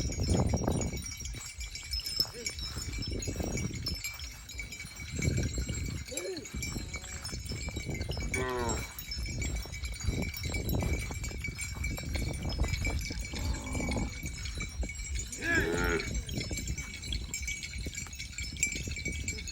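Livestock in the field giving two short bleating calls, about eight and sixteen seconds in, over a low rumble and a steady high-pitched whine.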